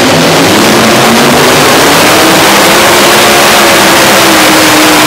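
Multi-engine modified pulling tractor at full throttle, dragging the weight-transfer sled off the line. The engine note is very loud and steady, and its pitch rises slowly over the first few seconds, then holds.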